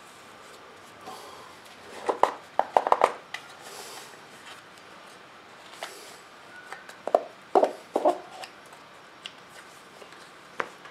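Hands folding a fabric drag chute and packing it into its tube canister: scattered rustles and small clicks, in two clusters about two seconds in and again about seven seconds in.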